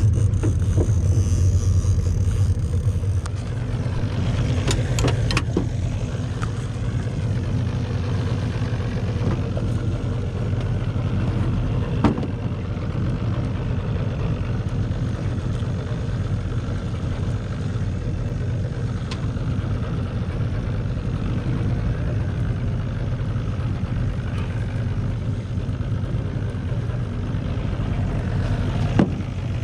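55-horsepower outboard motor idling steadily, a low, even hum, with two short sharp knocks, about twelve seconds in and near the end.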